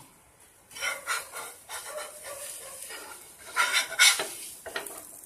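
A utensil scraping and stirring in a cooking pan, in a few uneven rasping strokes, the loudest a little under a second in and again near four seconds in.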